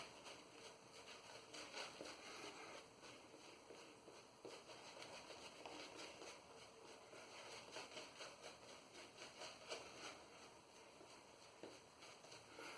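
Faint, irregular soft swishing and light ticks of a Zenith B10 boar-bristle shaving brush working up lather.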